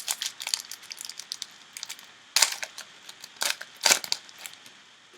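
Foil trading-card pack wrapper being torn open and crinkled by hand: a run of sharp crackles, with two louder ones partway through and near the middle of the second half.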